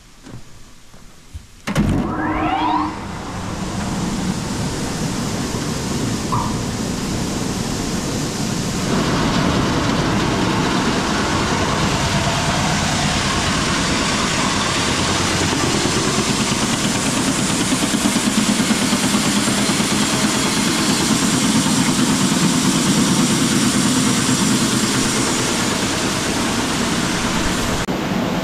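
Electric motor driving a grain auger switched on about two seconds in, spinning up with a short rising whine, then the auger running steadily with a loud mechanical rush that gets louder about nine seconds in.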